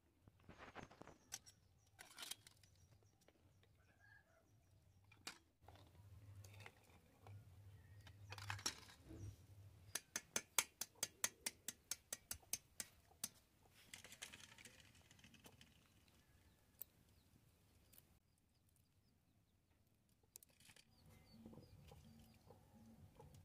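Quiet handling of boiled eggs: a few clinks and splashes as eggs are lifted with a steel spoon into a steel bowl of water, then a run of quick sharp taps, about four a second for some three seconds, as a hard-boiled egg's shell is cracked.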